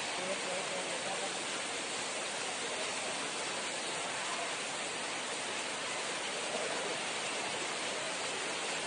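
Heavy rain falling steadily: a continuous, even hiss.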